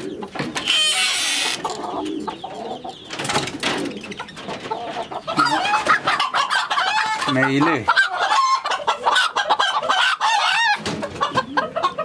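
Chickens clucking and squawking in wooden coops, getting louder and busier from about halfway through as a bird is caught and lifted out. A short rustling rush about a second in.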